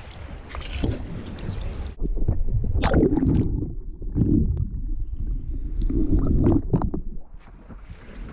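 Water sloshing and splashing at the surface, then muffled underwater rumbling and gurgling as the microphone goes below the surface about two seconds in, with surging bubbly gushes. It comes back up to a quieter surface hiss near the end.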